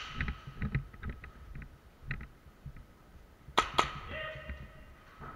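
Two sharp airsoft pistol shots in quick succession about three and a half seconds in, followed by a brief ringing. Before them, soft footsteps on a concrete floor.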